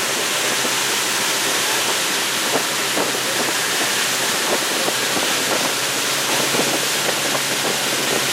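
Tour boat's motor running steadily under way, with a loud, even rush of wind and water noise.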